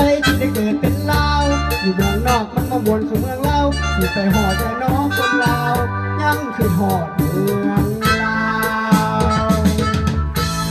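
Arranger keyboard playing an upbeat song accompaniment: a steady drum beat and bass line with a winding melody line on top.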